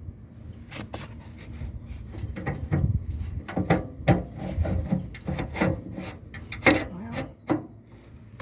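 Metal parts of a radial arm saw being handled and fitted by hand: irregular knocks and clicks with scraping and rubbing, getting busier from about two seconds in.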